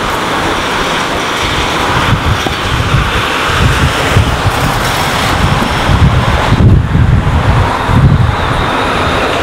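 Street traffic noise, with wind buffeting the microphone in low, uneven gusts.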